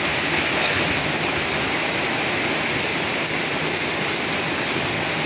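Heavy rain driven by strong gusting wind during a violent storm: a loud, steady rush of noise.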